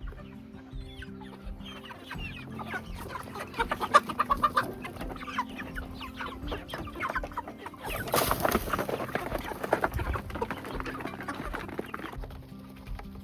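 A flock of chickens clucking, many short calls overlapping, with a brief noisy burst about eight seconds in.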